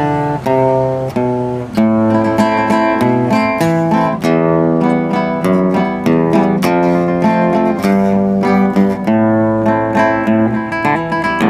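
Solo acoustic guitar picking a slow melody over chords, one plucked note after another, as the instrumental introduction to a ballad before the singing comes in.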